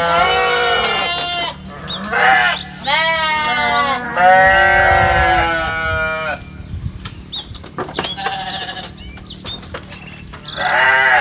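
Farm animals bleating: a run of loud, quavering calls, one after another, for the first six seconds. The calls are fainter after that, and a loud call starts again near the end.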